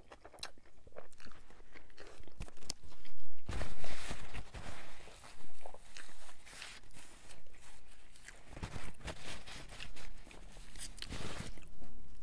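Close-miked chewing of a mouthful of Burger King Whopper, with wet crunching of the bun and lettuce. About three seconds in, a paper napkin is pressed and rubbed against the face, giving two longer stretches of loud rustling noise.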